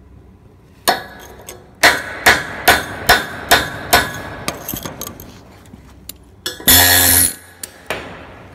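Hammer striking the welded steel T-joint: about seven sharp, ringing metal knocks, two to three a second, then lighter taps. A short loud buzzing hiss follows near the end.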